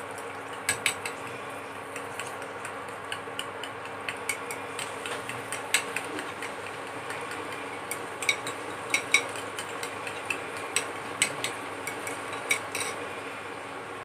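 A metal fork stirring a cornstarch-and-water slurry in a glass bowl, its tines clinking irregularly against the glass. This is the slurry being mixed to thicken a sauce.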